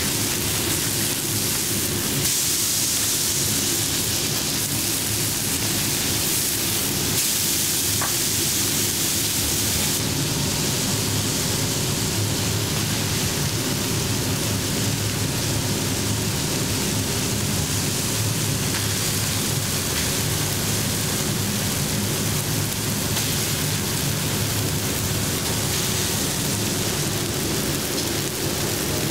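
Smashed beef burger patties sizzling steadily on a flat-top griddle, a continuous frying hiss, with a steady low hum underneath.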